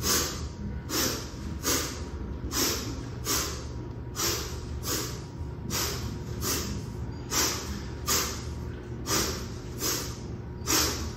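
Forceful breathing in time with two-hand kettlebell swings: a sharp sniff and a hissed breath through the teeth on every swing, about one swing every second and a half, seven swings in all.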